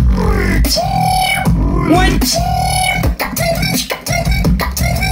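Beatboxing: a continuous deep bass under sharp clicks and hisses, with held vocal tones that bend and slide in pitch.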